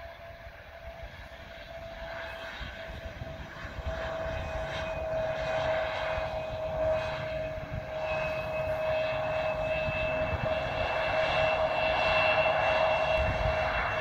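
Lufthansa Mitsubishi CRJ-900 regional jet's twin turbofan engines on the runway, growing steadily louder as the jet approaches. A steady whine sounds throughout, and a second, higher whine joins about halfway through.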